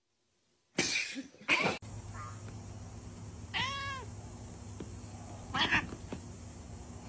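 A cat meows once, a short call rising then falling in pitch, about halfway through. Near the start come two brief, loud noisy sounds, and a softer one later.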